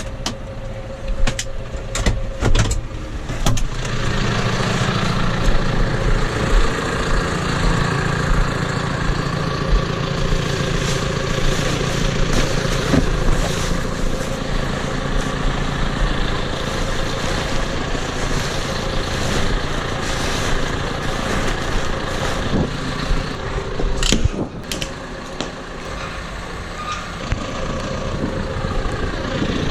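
Tractor engine running steadily while working a bale, picking up about four seconds in and easing off for a few seconds near the end. Several sharp knocks in the first few seconds and two more about twenty-four seconds in.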